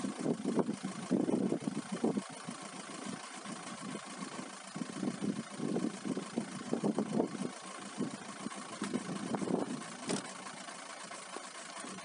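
Strong wind in a snowstorm buffeting the microphone in irregular, rumbling gusts, easing somewhat near the end.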